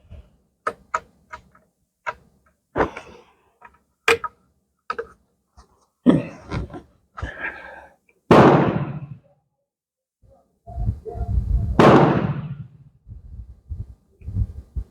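A string of short, sharp clicks and knocks from handling and loading a rifle, then two loud gunshots about three and a half seconds apart, each with a fading report.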